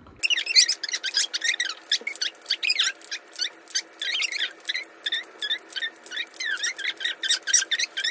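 Fast-forwarded audio of a wooden calendar number tumbler being flipped over and over: rapid clicking with squeaky, high-pitched chirps, all raised in pitch by the speed-up.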